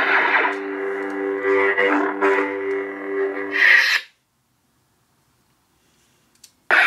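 Lightsaber sound board playing a Graflex sound font through the hilt's speaker: a steady electronic hum made of several low tones, with a brighter wash shifting over it. About four seconds in a loud bright swell ends it and it cuts to silence. Near the end a sudden ignition brings the hum back on.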